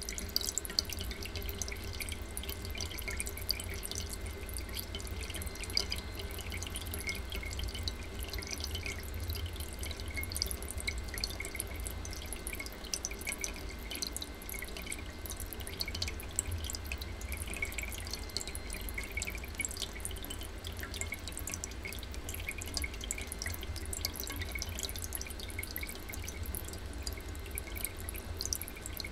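Thin streams of water from a homemade Kelvin water dropper falling and dripping into open tin cans: a continual, irregular patter of small drips with a few louder ticks.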